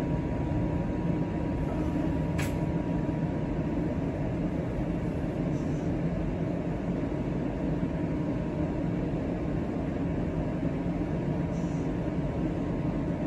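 Steady running hum inside a stopped TTC streetcar, with a faint steady whine and a single click about two and a half seconds in.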